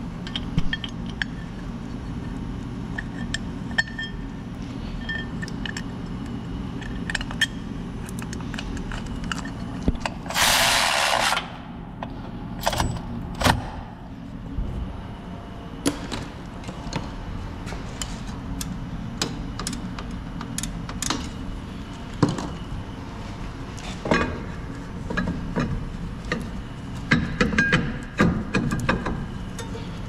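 Metal tools and parts clinking and clattering during hand work on a car's rear hub, over a steady low hum. A short hiss about ten seconds in lasts a little over a second.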